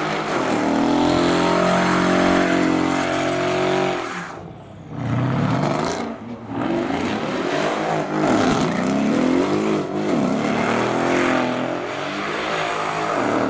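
Car engine revved hard: held at high revs for about four seconds, dropping off, then revved up and down again and again.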